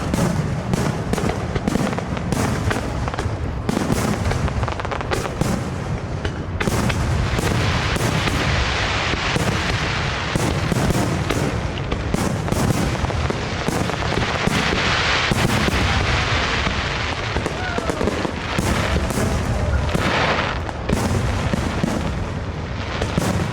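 A dense barrage of aerial firework bursts, with bangs and booms following one another several times a second without a break. A crackling hiss from crackle shells swells up in the middle.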